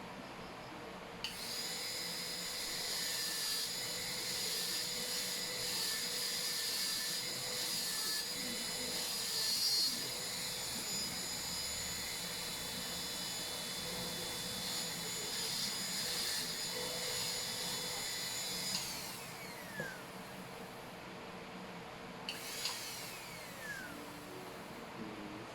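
High-speed air-turbine dental drill whining steadily while cutting a cavity preparation. It starts about a second in and spins down with a falling pitch about two-thirds of the way through. A second short run near the end also winds down.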